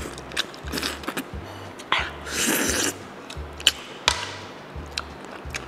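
Close-miked mouth sounds of a person eating curried fish head by hand: sharp lip smacks and chewing clicks, with one longer slurp about two and a half seconds in. Background music with a steady low beat runs underneath.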